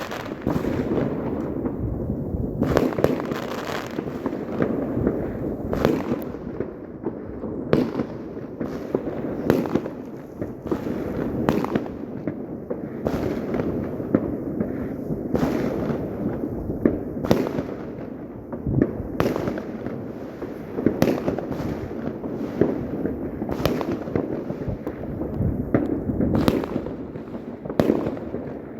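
Many New Year's fireworks going off at once: sharp bangs and cracks come at irregular intervals, often several a second, over a continuous rumble of more distant bursts.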